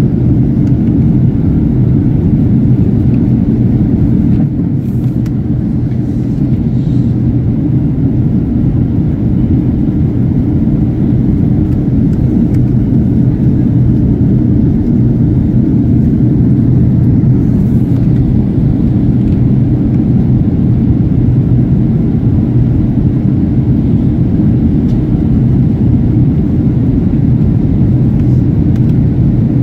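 Steady cabin rumble of an Airbus A380 descending on approach, heard from inside the cabin, with a steady low hum running through it.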